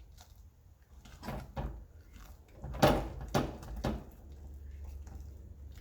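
A utensil stirring mashed potato and melting butter in a saucepan: about five short strokes between one and four seconds in, the loudest near the middle.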